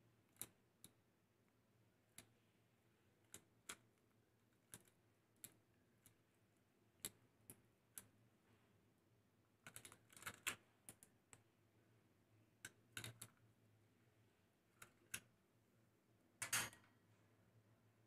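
A rosy-faced lovebird cracking seeds in its beak at a plastic seed cup: small, sharp, irregular clicks, a quick cluster about ten seconds in and one louder rattle near the end.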